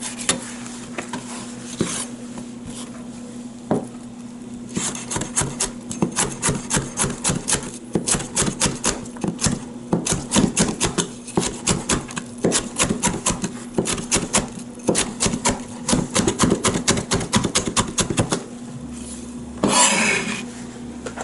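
Chinese cleaver slicing a yellow bell pepper into julienne strips on a plastic cutting board: a few scattered knocks, then from about five seconds in a rapid, even run of blade knocks on the board, about four a second. Near the end a short scrape as the blade gathers the cut pieces.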